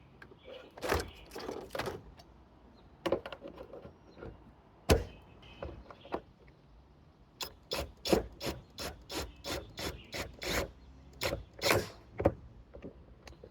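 Gutter support bracket being worked back into place over metal flashing under the shingles: scattered knocks and scrapes, then a run of quick rhythmic scraping strokes, about three a second, for several seconds.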